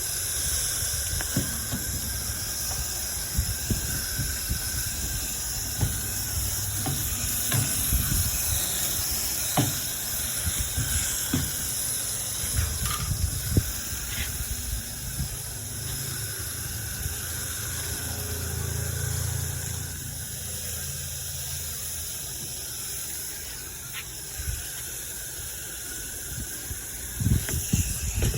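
Steady hissing spray of water from a hose washing an air-conditioner package unit's coil, with a low rumble and occasional knocks from handling.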